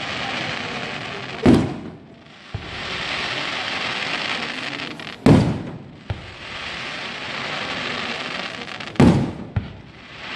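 Aerial firework shells bursting: three loud booms about four seconds apart, each followed by a long crackling hiss as the stars burn out.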